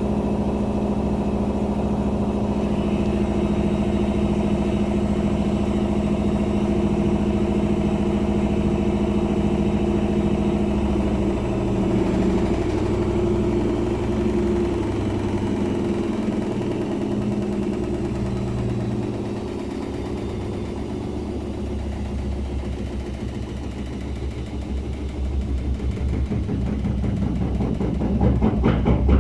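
Daewoo washing machine spinning with an unbalanced load at up to 800 rpm: a steady motor hum for the first third. After that the pitch shifts and the sound drops for a while, then builds again near the end.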